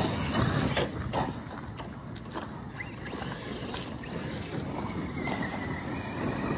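Large-scale brushless electric RC truck running across loose gravel, its tires crunching and throwing stones, loudest in the first second, then fading and building again near the end.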